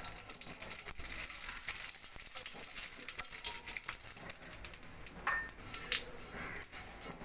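Radhuni seeds sizzling and crackling in hot mustard oil as a tempering (phoron), stirred with a wooden spatula in a non-stick wok. The crackle is densest for the first few seconds and thins out near the end.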